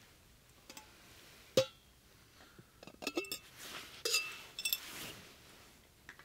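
Camp cookware and utensils being handled: a sharp knock about a second and a half in, then a run of clinks and rattles with brief ringing tones.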